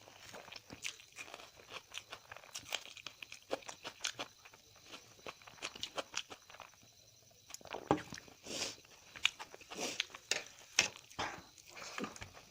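Close-up eating sounds: irregular chewing with crunches and sharp wet clicks, pausing briefly a little past halfway.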